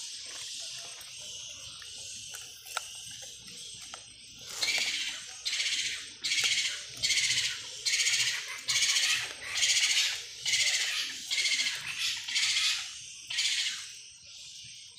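Animal calls. A steady high hiss is followed, from about four and a half seconds in, by about a dozen high, buzzy calls, each about half a second long, repeating in an even rhythm.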